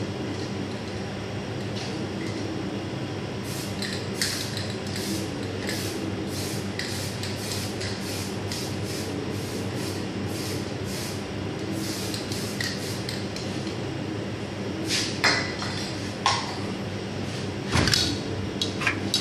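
An aerosol spray can giving many short hissing bursts, about two a second, as colour is sprayed onto a pastillage sugar showpiece. Near the end come a few sharp clicks and a knock as the can is handled and shaken, over a steady kitchen ventilation hum.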